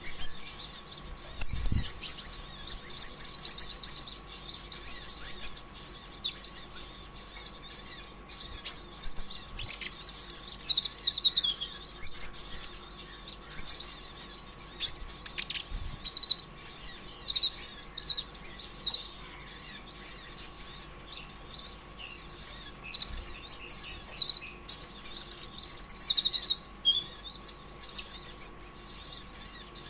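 A kolibri ninja (konin ijoan, the brown-throated sunbird) singing continuously in a fast run of high, twittering, chattering phrases with only short breaks. This is the nonstop 'gacor' song used to provoke other konin into singing. A faint steady hum runs underneath.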